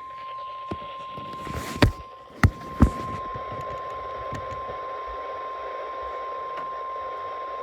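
NOAA Weather Radio warning alarm: a single steady high tone held without a break, heard over radio hiss. Three sharp loud clicks of static cut in about two to three seconds in.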